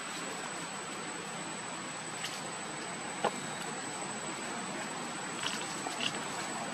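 Steady outdoor insect drone with a constant high-pitched whine, and a few short, faint squeaks scattered through it.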